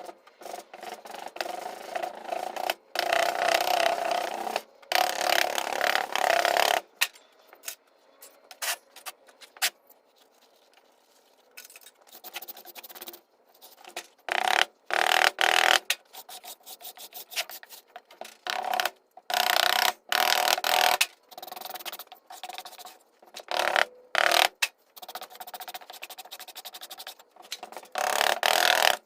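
Bursts of scraping and rubbing, some lasting a few seconds, with quieter stretches between.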